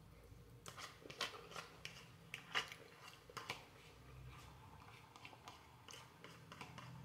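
A person eating instant noodles: quiet chewing with scattered short clicks and smacks, most of them in the first half.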